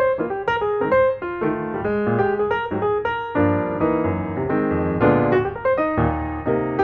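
Background music: a piano tune with a bass line, notes played in quick succession.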